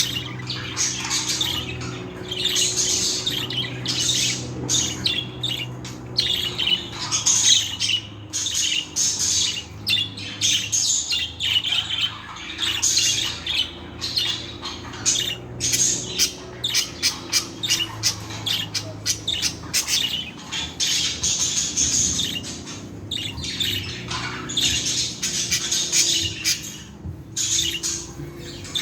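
Several budgerigars chattering, warbling and squawking, a continuous stream of fast, high calls, over a faint steady low hum.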